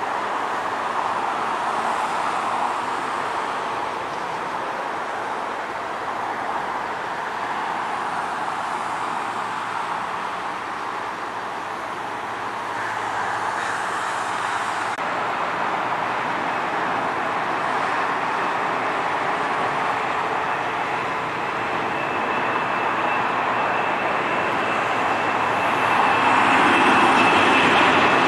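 Steady jet engine noise across an airport. In the last few seconds a thin high whine comes in and the noise grows louder as a Boeing 747's engines spool up for its takeoff roll.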